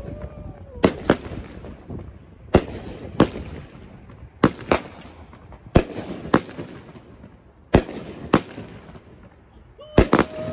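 Consumer firework cake firing a string of aerial shells: sharp bangs, mostly in pairs, about every one and a half to two seconds, with crackling between them.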